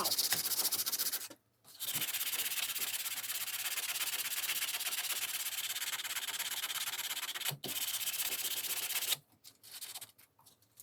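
Steady sanding, an abrasive rubbing on the workpiece, with short breaks about a second and a half in and again near the middle, turning stop-and-start in the last couple of seconds.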